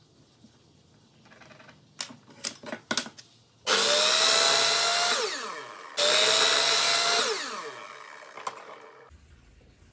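Miter saw cutting twice through a laminated block of white maple and rosewood strips. Each cut starts suddenly and loud, and after each one the blade's whine winds down as it coasts to a stop. A few light clicks and knocks come before the first cut.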